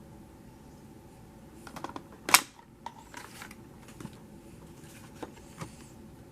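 A few small clicks and taps, with one sharp, loud click a little over two seconds in.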